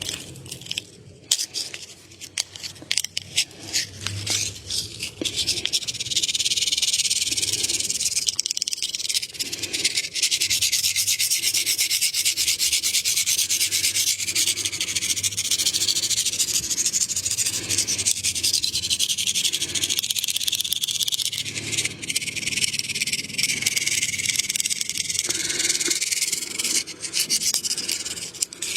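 Hands rubbing and massaging over skin: a steady, dry rubbing hiss with fine crackles, in repeated strokes. There is one sharp click about a second in, and the rubbing grows louder about six seconds in.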